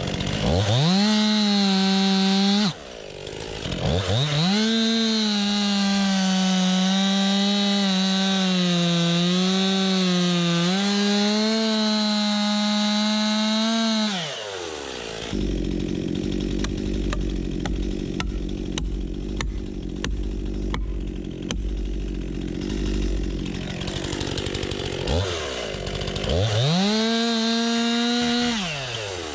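Two-stroke chainsaw revving to full throttle and cutting through birch, its pitch sagging under load, then dropping to a rough idle for about ten seconds before revving up for another cut near the end.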